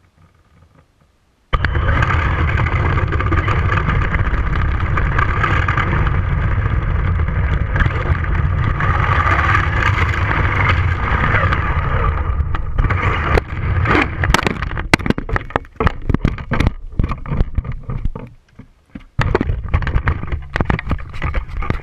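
1/16 Traxxas Mini E-Revo VXL electric RC truck driving fast, heard from a camera on its body: a loud, steady rush of tyre, drivetrain and wind noise that starts suddenly about a second and a half in. After about twelve seconds it breaks up into irregular knocks and clatter, ending with the truck being handled.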